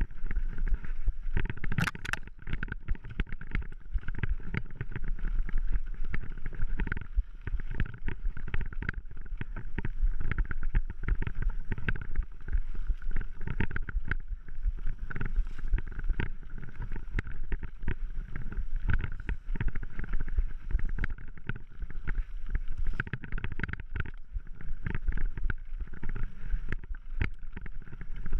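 Mountain bike ridden over rough dirt singletrack: a constant rattle and clatter of knocks from the bike and the camera mount on the bumps, over a low rumble of tyres on the trail.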